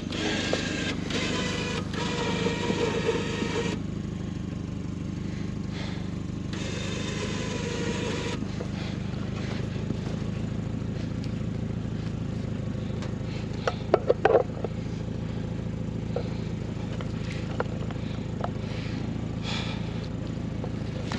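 Winch on a Tracker 4x4 pulling in its cable in two spells over the vehicle's steadily running engine, dragging the stuck vehicle sideways off a log in snow. A short cluster of sharp clicks comes about two-thirds of the way through.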